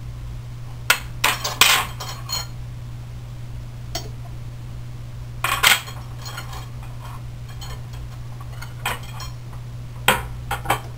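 Steel frame rods for a Prusa Mendel 3D printer clinking and knocking against each other as they are handled and picked out of a pile, in scattered clusters of sharp metallic clinks. A steady low hum runs underneath.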